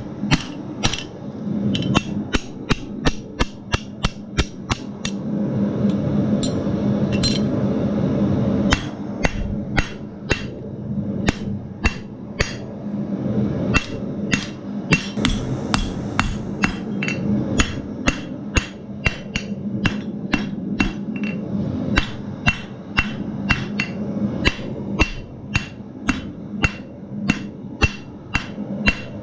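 Blacksmith's hammer striking steel on an anvil in a steady run of blows, about two to three a second, each with a short metallic ring. The blows ease off for a few seconds about a fifth of the way in while a steady rushing noise rises underneath, then resume.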